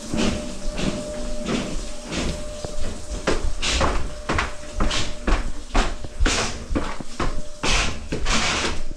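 Heavy footsteps walking and then going down a staircase: an irregular run of sharp knocks, about one or two a second, growing louder in the second half.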